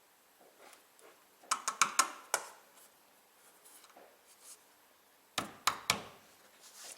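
Sharp metallic clicks and knocks in two quick bursts, one about a second and a half in and another a little after five seconds, from car-lifting gear (jack and jack stand) being handled and positioned under the car.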